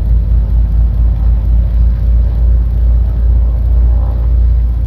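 The twin Continental IO-470 fuel-injected flat-six engines of a 1959 Cessna 310 running at about 1700 RPM for a ground run-up, heard from inside the cockpit as a steady, loud rumble.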